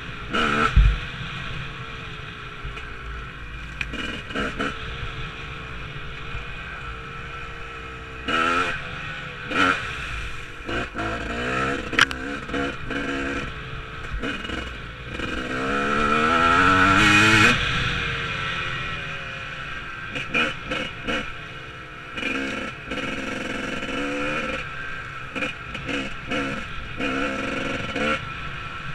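Enduro motorcycle engine running while the bike is ridden over rough dirt, revving up and backing off again and again, with one longer rising rev about two-thirds of the way through and occasional sharp knocks.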